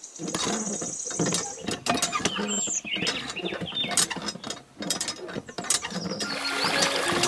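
Irregular small clicks, knocks and rattles of hard parts being handled around a miniature water-pump model. A steady hiss starts about six seconds in.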